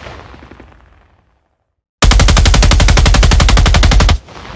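Assault rifle firing on full auto. The echo of a short burst dies away, then about two seconds in comes a rapid burst of about two seconds that cuts off sharply and leaves an echoing tail.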